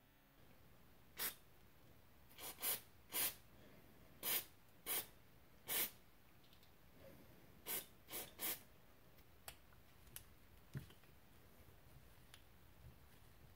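About ten short hissing spurts of aerosol carburetor cleaner shot through a small brass carburetor jet to clear varnish from it, then a few light clicks.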